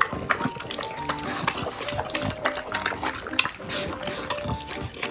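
Two pit bulls eating dumplings and vegetables in chicken broth from bowls: wet slurping, lapping and chewing with many small clicks. Background music with a simple melody plays underneath.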